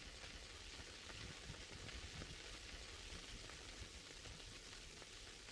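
Near silence: the faint steady hiss and fine crackle of an early sound film's soundtrack.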